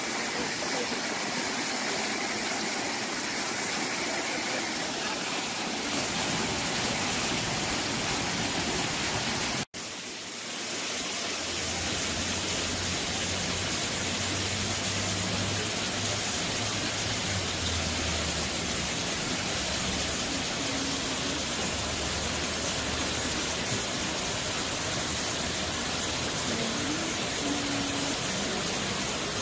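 Artificial rock waterfall splashing into a pool: a steady rush of falling water. It cuts out for a moment about ten seconds in, and a low hum runs underneath after that.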